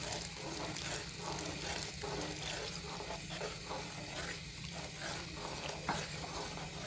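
A spoon stirring a pot of hot corn and vegetable soup with a repeated swishing, as cornflour slurry is stirred in to keep lumps from forming. There is one sharp knock about six seconds in.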